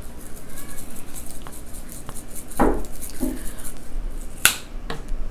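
Spice shaker of crushed red pepper flakes being shaken, a run of faint rattles and light taps, with a louder knock about two and a half seconds in and a sharp click a little after four seconds.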